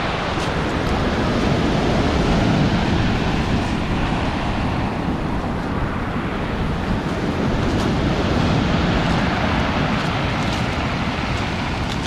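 Sea surf washing up a pebble beach in foaming sheets and drawing back, a steady rushing that swells twice as waves come in.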